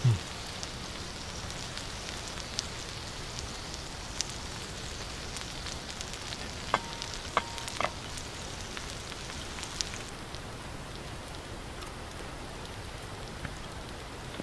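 Meat and caul fat sizzling on a hot stone: a steady hiss with scattered crackles and pops. A dull thump right at the start and a few sharp clicks about seven seconds in.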